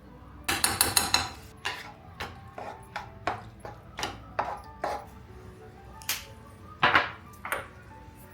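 Hard objects being handled: a quick run of clinks and knocks, then a dozen or so separate sharp clicks and knocks about every half second, over faint background music.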